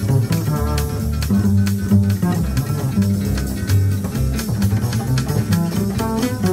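Two double basses playing jazz, plucked: one holds the low notes while the other picks a quicker melodic line higher up.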